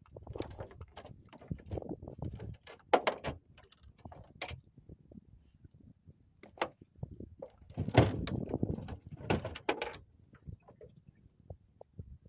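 Irregular knocks, clicks and clatters of hard objects being handled, with a louder burst of clattering about eight seconds in.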